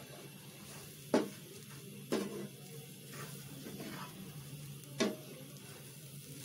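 A spatula stirring a thick grated-coconut, milk and sugar mixture in a nonstick frying pan on the heat, with a soft sizzle. The spatula knocks sharply against the pan three times: about a second in, at about two seconds and at about five seconds.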